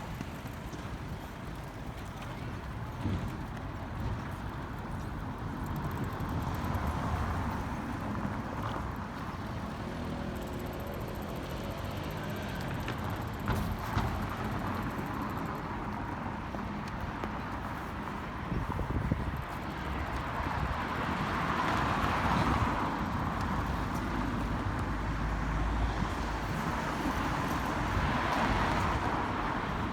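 Road traffic on a city street: a steady hum of cars, with vehicles passing more loudly about two-thirds of the way through and again near the end.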